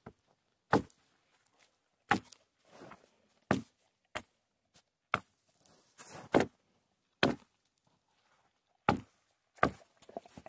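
Axe chopping the branches off a felled young pine: a series of sharp chops at uneven intervals of about one to one and a half seconds.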